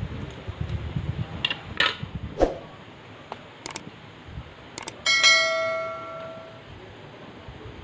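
A few light knocks and sharp clicks, then, about five seconds in, a bright bell chime that rings out and fades over about a second and a half: the notification-bell sound effect of a subscribe-button overlay.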